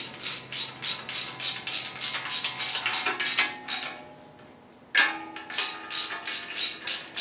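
Hand ratchet clicking in quick, regular strokes while it tightens the lock nuts that hold the windage tray and oil pump onto an engine block. The clicking pauses about four seconds in, then starts again.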